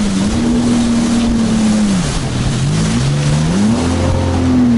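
Jet ski engine running at speed over choppy sea, with water spray hissing alongside. The engine pitch drops about two seconds in as the throttle eases, climbs again, then falls once more near the end.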